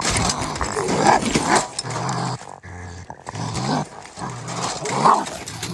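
Raccoon growling and snarling in several rough, low bouts while it is forced down into a wire cage trap, with scuffling and knocks from the struggle.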